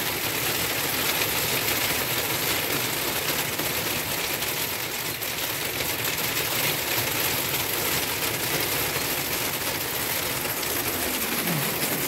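Small hail falling on wet brick paving: a dense, steady hiss of countless fine ticks.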